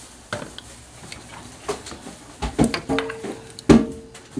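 Ladle and steel cooking pot knocking and clattering while a coconut-milk dessert is stirred: a handful of scattered sharp knocks, the loudest a little before the end.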